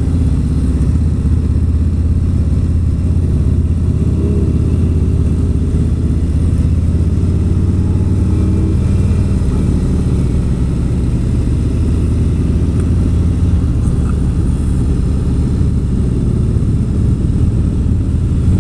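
Harley-Davidson Street Glide Special's Milwaukee-Eight V-twin running steadily at a low cruising pace, heard from the rider's seat. There is a brief rise and fall in engine pitch about four seconds in.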